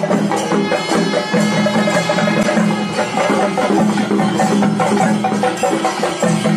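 Traditional-sounding music with a busy percussion beat of sharp, wood-block-like clicks over repeating pitched notes.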